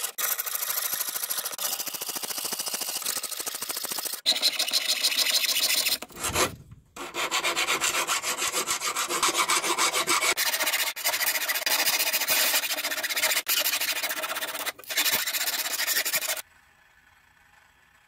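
A jeweler's saw cutting silver sheet in quick strokes, then a hand file rasping along the edge of the silver sheet in rapid, even strokes; both stop shortly before the end.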